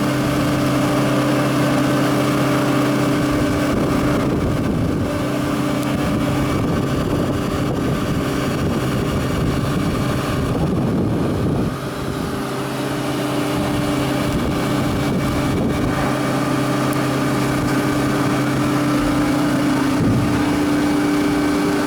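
Biomass sawdust burner running: a steady machine hum of several fixed tones, typical of its blower fan motor, over a continuous rushing noise. The lowest hum drops out briefly about halfway through, then returns.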